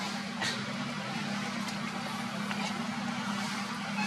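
A steady low motor hum under an even hiss, with a few faint clicks.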